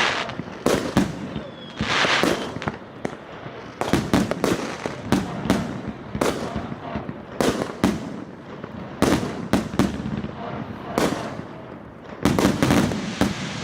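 A 100-shot, 2-inch consumer fireworks cake firing shot after shot. Sharp launch thumps and bursts come roughly one to two a second, some trailing a crackle, with a denser cluster near the end.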